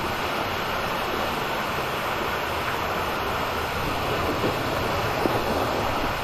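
Steady rush of a mountain stream's water cascading over rocks, with a couple of faint knocks near the end.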